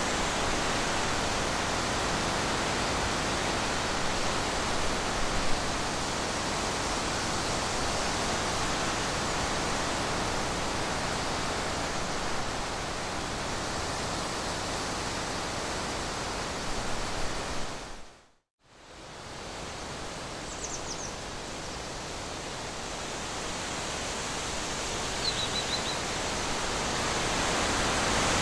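Steady, even hiss with no distinct source. It cuts out to silence for a moment about eighteen seconds in, then returns, and two faint, short high chirps come later.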